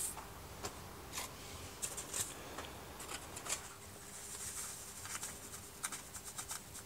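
Faint, scattered clicks and rustles of hands handling a small seed packet and tipping tiny celeriac seeds out into a palm.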